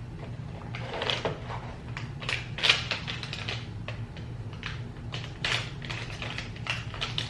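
Irregular clicks and clacks in quick, uneven runs, loudest a little under 3 seconds in, over a steady low hum.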